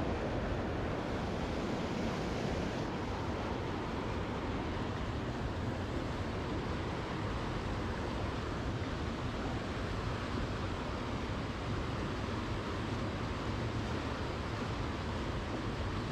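Steady, even rush of flowing water, with no distinct events.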